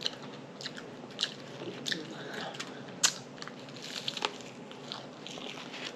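A person chewing a bite of bacon, egg and cheese croissant sandwich close to the microphone, with irregular sharp mouth clicks.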